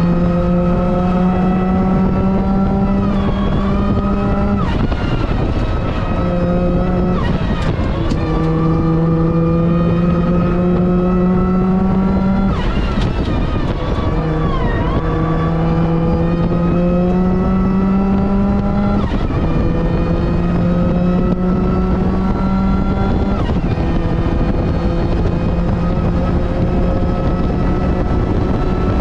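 Supercharged Mazda MX-5 NB four-cylinder engine under hard acceleration, heard from on board. The engine note climbs steadily through each gear, then drops sharply at each shift, about seven times.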